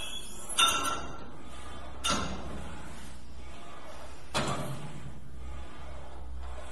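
Three separate knocks or thuds, each with a short ringing tail, over a steady low hum.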